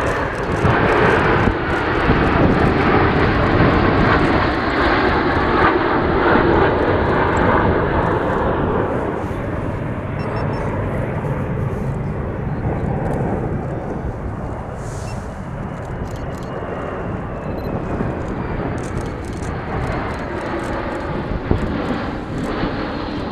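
Jet engines of a fighter formation, F-35 and F-16s, flying past: a loud roar that eases after about eight seconds, then swells again near the end with a thin whine as another jet approaches.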